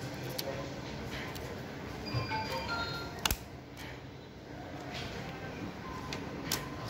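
Quiet background music with a few sharp clicks, the loudest a little over three seconds in.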